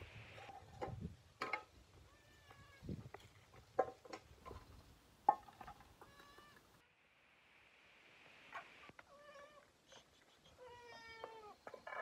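A small animal calling repeatedly in short, pitched calls that come in two runs, with scattered knocks and taps in between.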